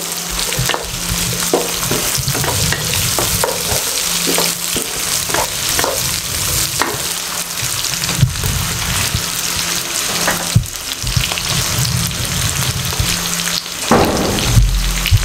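Cubed onion and green capsicum sizzling in hot oil in a non-stick wok on high heat, softening. A wooden spatula stirs them, scraping and knocking against the pan at irregular moments, with a few louder knocks near the end.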